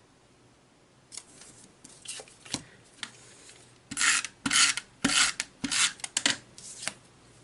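Paper being rubbed and pressed by hand: a few light ticks, then a run of about six short, scratchy rubbing strokes in the second half.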